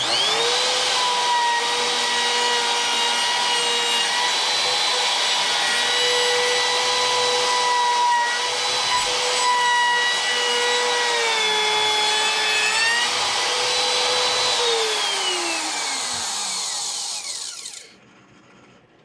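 Wood router spinning up, then running at speed while it cuts a roughly eighth-inch-deep pass into a wooden guitar body through a template. Its whine dips in pitch under load about twelve seconds in, then the router is switched off and winds down near the end.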